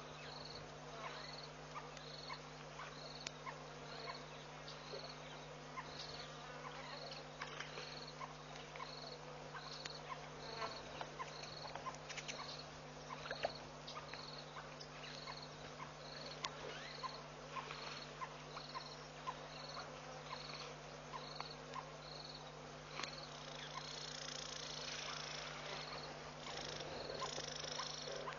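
An insect chirping, a short high chirp repeated evenly a little more than once a second, over a steady low hum, with scattered faint clicks.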